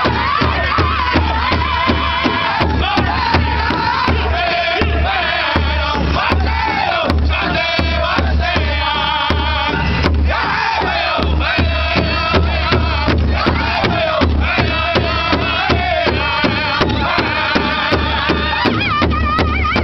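Powwow drum group singing in high, strained voices together while beating a large hide drum in unison with a steady, even beat. The sung phrases waver and glide downward in pitch.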